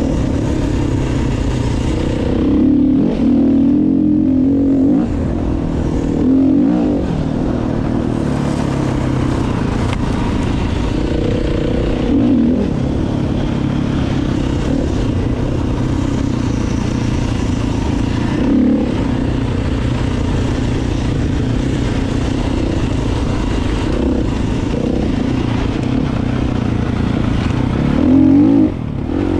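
Motorcycle engine running steadily while riding. It speeds up briefly several times, most strongly near the end.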